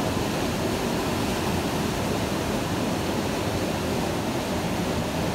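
Fast mountain stream running, a steady, even rush of water with no separate splashes.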